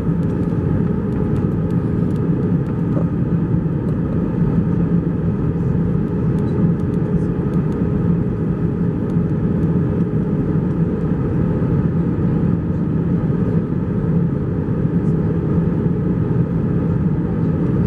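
Steady cabin roar of an Airbus A321-231 airliner heard inside the cabin over the wing, a mix of IAE V2500 engine noise and airflow, with a steady low hum under it, as the aircraft descends towards landing.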